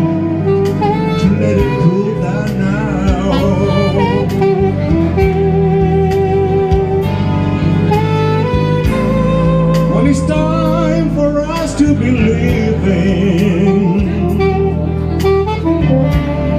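Live band music: a saxophone plays a slow, melodic solo with wavering vibrato over guitar, bass and a steady soft beat.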